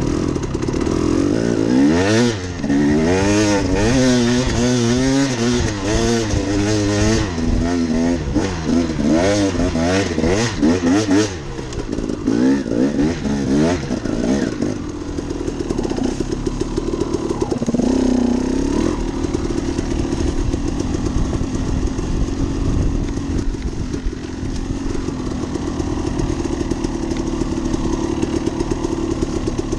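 Two-stroke dirt bike engine revving up and down again and again as the bike is ridden along a trail, for about the first ten seconds; it then runs at lower, steadier revs, with one more brief rev-up partway through, and settles near idle toward the end.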